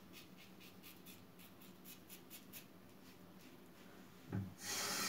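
Plastic double-edge safety razor with a Mühle blade scraping through lathered stubble in short quick strokes, about three a second, faint. Near the end a knock, then a tap starts running into the sink.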